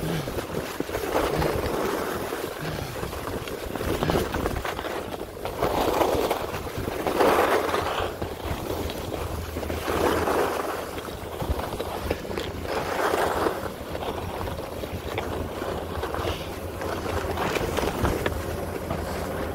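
Skis sliding and scraping on packed snow, the hiss swelling every couple of seconds, over a steady low rumble of wind on the microphone.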